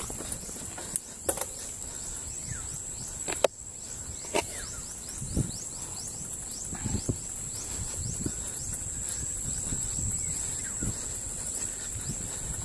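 Mountain bike rolling over a rough dirt and grass trail: a low rumble of tyres on the ground with the bike rattling and several sharp knocks over bumps, the loudest about three and a half seconds in, over a steady high whine.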